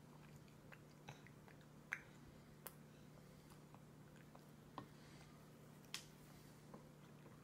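Near silence with about six faint, short clicks of a toddler's fingers picking fruit pieces from a glass bowl and of her chewing, over a faint steady low hum.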